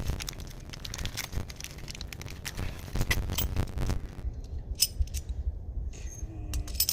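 Small metal parts, the stem bolts and washers, clinking and rattling as they are handled and sorted. The clicks come thick and fast for the first few seconds, then thin out to a few scattered clinks over a low rumble.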